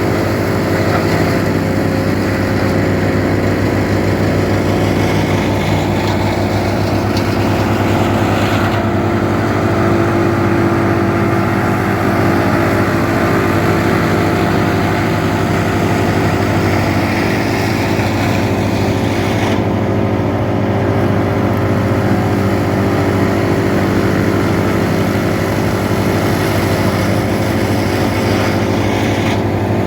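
A tractor-driven PTO drum wood chipper running steadily on tractor power, chipping date palm fronds. The engine and drum give a loud, even drone, and the hiss above it shifts a few times.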